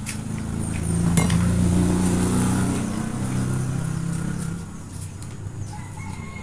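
A motor vehicle's engine running past, a low hum that grows louder about a second in and fades away after four or five seconds. A single sharp click sounds about a second in, and a faint high call near the end.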